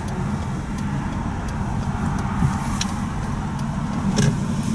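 Steady low engine and road hum of a car heard from inside the cabin as it moves slowly up to an intersection.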